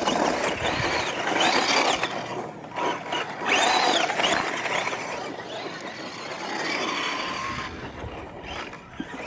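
Radio-controlled trucks racing on dirt, their small electric motors and gears whining up and down in pitch as the trucks speed up and slow down, over a rough rustle of tyres on dirt.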